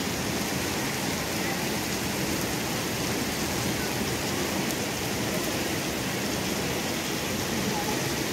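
Waterfall rushing close by: a steady, even noise of falling water and spray that does not change.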